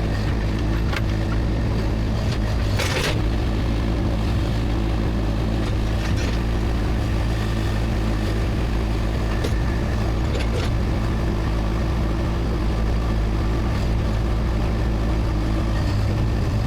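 Skid steer loader's engine running steadily while it unloads attachments, with one brief knock about three seconds in.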